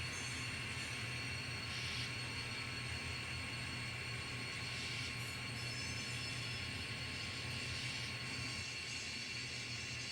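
Sound-equipped N scale diesel locomotive idling at a stop, a steady engine hum with a constant hiss.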